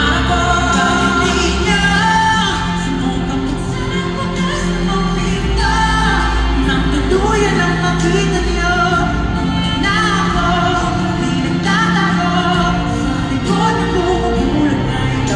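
Live pop ballad: male singers taking solo lines in turn over steady instrumental backing.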